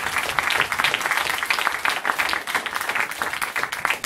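Audience applauding steadily, many hands clapping at once, with the performers on stage clapping along.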